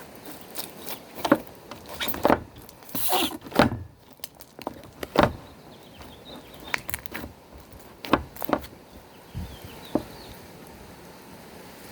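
Hands squeezing and pressing slime, giving a string of irregular sticky pops and clicks that die away about ten seconds in.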